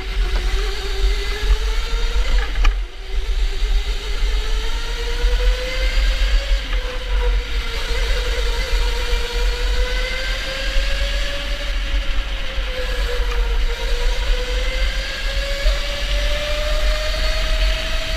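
Electric go-kart motor whining as the kart races, its pitch slowly rising and falling with speed through the corners, over a steady low rumble of the kart on the track. The whine dips briefly about three seconds in.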